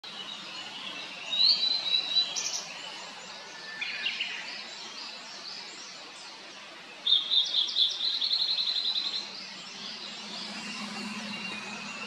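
Blue-and-white flycatcher singing: a phrase of clear whistled notes about a second and a half in, a softer short phrase around four seconds, and a second loud phrase about seven seconds in made of a fast run of repeated notes lasting about two seconds. A faint steady low hum lies underneath.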